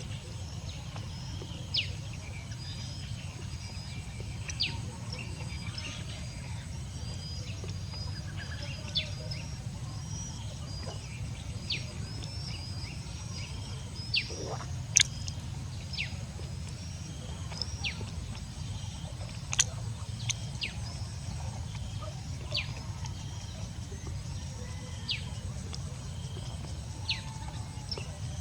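Birds chirping: short, high, downward-sliding chirps repeating every second or two, over a steady low hum.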